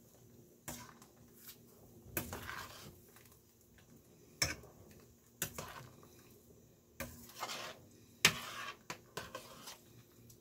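A metal spoon stirring chicken pieces in a stainless steel pot of water, knocking and scraping against the pot's sides and bottom in irregular clinks, the loudest about four and a half and eight seconds in.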